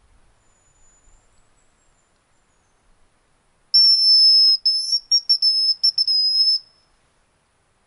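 Hazel grouse decoy whistle blown to imitate the bird's song. A faint, thin, very high whistle comes first, then about three seconds of loud, high piping: one long note that breaks into several short ones toward the end.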